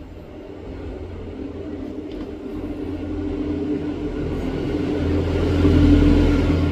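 Hot air rework station blowing on a phone circuit board to reflow solder paste: a steady hum with an airy hiss that grows gradually louder, loudest near the end.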